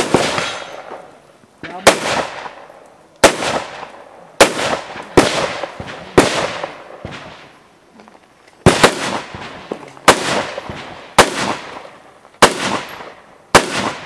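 Semi-automatic AR-style rifle firing single aimed shots, about a dozen, roughly one every second or so, each shot trailing a long echo. The shots pause for about two and a half seconds past the middle, then resume.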